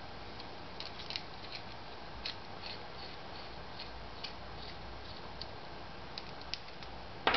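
Faint, irregular small clicks and ticks of a hex key and bolt working against a small plastic corner piece as it is fastened by hand, over a steady low room hum.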